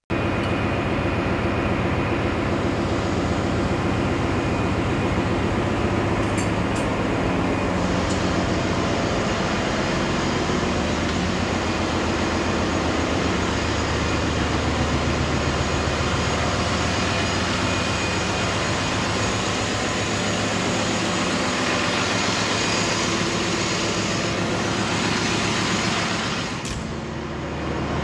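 Ship's engine-room machinery noise: a loud, steady mechanical drone with a low hum, easing off briefly near the end.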